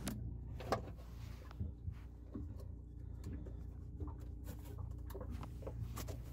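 Scattered faint clicks and knocks of a hand handling a Rule 800 bilge pump and working its hose loose from the outlet pipe, over a steady low hum.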